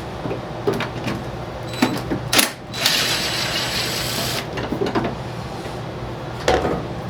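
Hand tools clicking and knocking against metal while a stuck, rusted screw on a snowblower console is worked at. About three seconds in comes a louder rasping, rattling burst that lasts about a second and a half.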